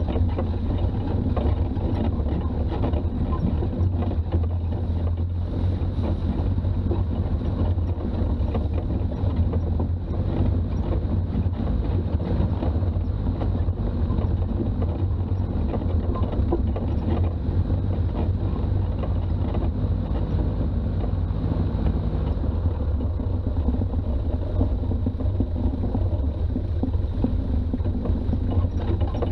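Toyota BJ40's diesel engine running steadily under way, with a constant low rumble of engine and road noise.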